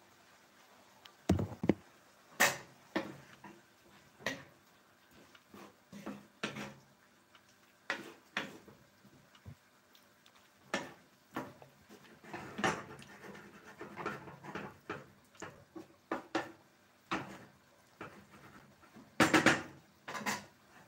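Wooden spatula stirring squid adobo in a frying pan: irregular knocks and scrapes of wood against the pan. The loudest clatter comes about a second in and again near the end, when the spatula is picked up from and laid back on a plate.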